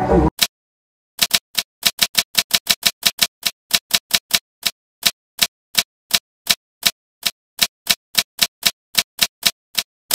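Typing sound effect: a run of sharp single key clicks, about three a second and unevenly spaced, with dead silence between them. A short tail of music cuts off just at the start.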